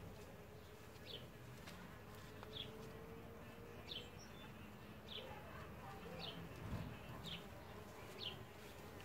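Bees buzzing in a low hum as three of them tumble together on top of one another at a wall nest hole, with a short low rumble about two-thirds of the way in. A bird's short high chirp repeats about once a second over it.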